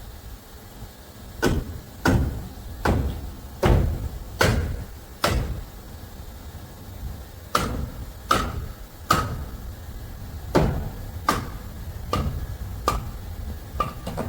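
Hammer driving nails into wood framing: a run of six steady blows, a short pause, then eight more, about one blow every 0.8 s, the later ones with a slight ring.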